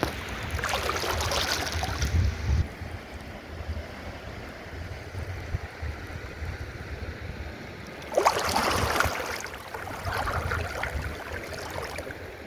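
River water splashing and rushing, with a low wind rumble on the microphone. Louder surges of splashing come about a second in and again from about eight seconds in.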